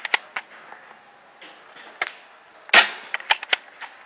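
Paintball markers firing: sharp, scattered pops, two near the start, then a quick run of about six around three quarters of the way in, the first of the run the loudest.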